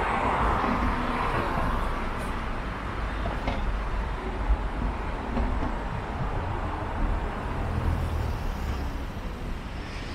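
Road traffic: a passing vehicle's tyre and engine noise swells near the start and fades over a few seconds, over a steady low rumble of traffic.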